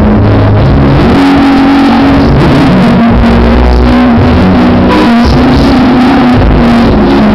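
Loud music, with held melodic notes over a steady bass line.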